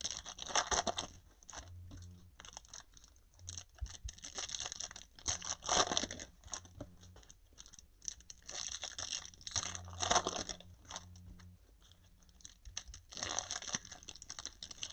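Foil trading-card pack wrappers crinkling and tearing as packs are handled and opened, in about four short bursts a few seconds apart.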